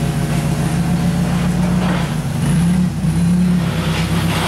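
Forklift engine running steadily while carrying a load on raised forks, getting louder twice past the halfway point as it is given more throttle.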